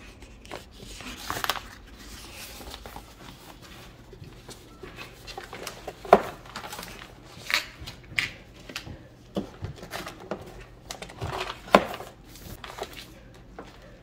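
Rustling and crinkling of a roll of marble-pattern contact paper being unrolled and handled, then hands pressing and sliding the sheet flat inside a wooden drawer. A few sharp taps and knocks stand out, the loudest about halfway through and near the end.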